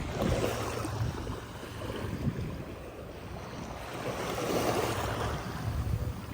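Small waves washing up on the beach, swelling twice, once just after the start and again more strongly past the middle, with wind rumbling on the microphone.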